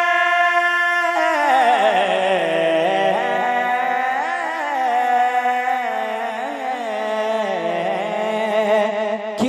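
A man singing a naat unaccompanied: he holds one long steady note, then about a second in breaks into a wavering, ornamented melisma that slowly drifts lower in pitch.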